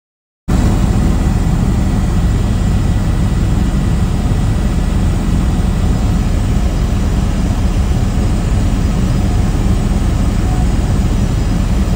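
Helicopter engine and rotor noise heard inside the cabin: a loud, steady, low rumble that starts abruptly about half a second in.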